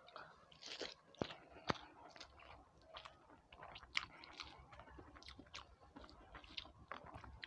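Faint close-up chewing of a person eating rice and fish curry by hand, with irregular soft smacks and clicks.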